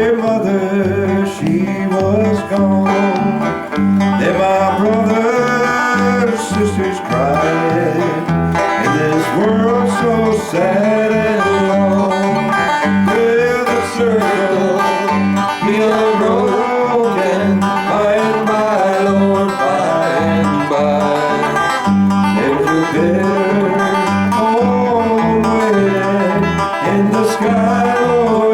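Live acoustic country-style song played on guitar and other plucked strings, a continuous melody over a steady low note.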